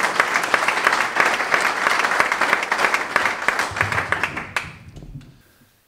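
Audience applauding with dense clapping, thinning out after about four and a half seconds and dying away near the end.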